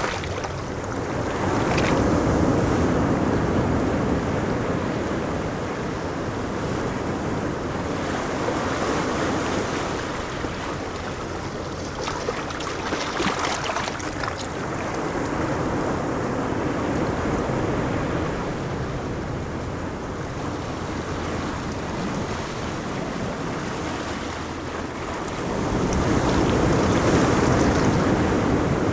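Ocean surf washing onto a beach, a steady rush that swells as waves break, with a louder wave about two seconds in and another near the end, and some wind on the microphone.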